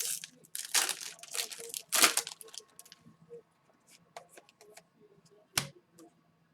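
Hockey card pack wrappers being torn open and crinkled: several quick rips in the first two seconds, then scattered light clicks of cards being handled, with one sharper click near the end.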